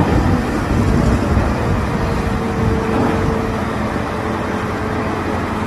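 Wheel loader engine running, a loud, steady rumble with a faint steady tone through the middle.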